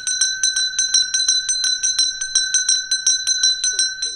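A metal ritual bell rung rapidly and without pause, about six strikes a second, over a steady high ringing tone.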